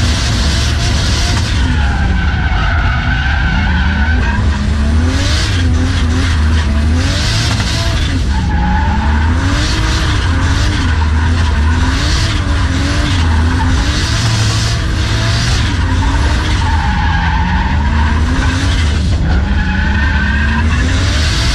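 Inside the cabin of a Nissan Silvia S14 drift car with a 1JZ straight-six, the engine revs rise and fall continually through the slides. The tyres squeal and scrub in repeated spells as the car drifts.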